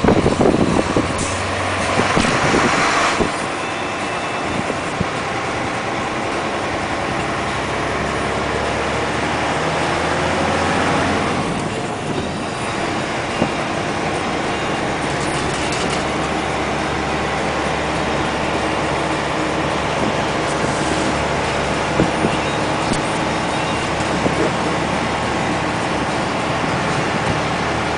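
Loaded UD Trucks Quon dump truck's diesel engine pulling hard uphill at full throttle. The engine note climbs for several seconds, drops off briefly about twelve seconds in, then pulls steadily again.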